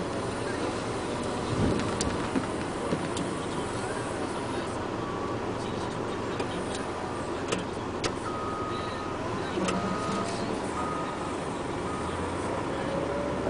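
Japanese kei mini truck loaded with gravel driving away: a small engine running under a steady rumble, with a thump as the cab door shuts about a second and a half in. Scattered clicks and a few short high beeps come about two-thirds of the way through.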